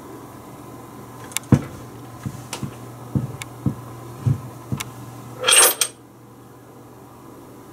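Handling noise: about a dozen light clicks and knocks over a few seconds, then a short scraping rustle about five and a half seconds in. A low steady hum stops right after the rustle.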